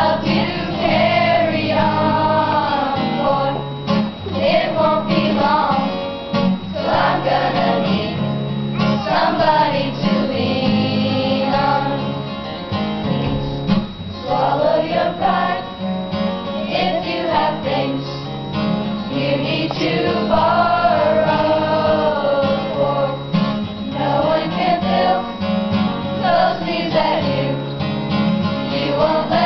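A children's choir singing a song, accompanied by an acoustic guitar.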